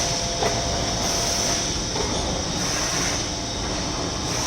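Factory machinery running steadily in a box-printing plant: a continuous low rumble with a constant high hiss and faint steady hum tones.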